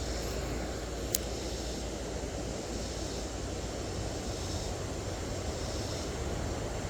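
Steady low rushing of a swollen creek's flowing water, with a faint high insect hum over it and a single small click about a second in.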